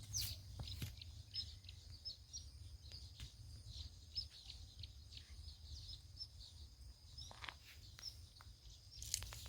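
Small forest birds chirping: many short, high calls, faint, over a steady low rumble, with a few soft knocks.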